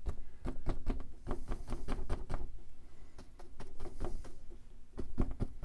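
Brush dabbing paint onto a stretched canvas to stipple highlights into tree foliage: a quick, irregular run of soft taps, several a second.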